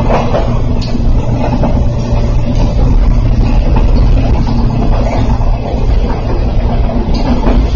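Running noise of a moving electric local train heard from inside the passenger car: a loud, steady low rumble of wheels on rails and running gear, with a few faint knocks.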